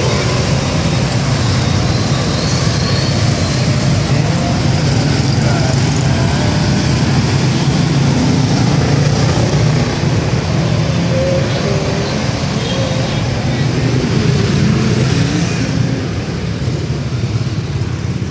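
Steady background din of road traffic, growing a little quieter near the end.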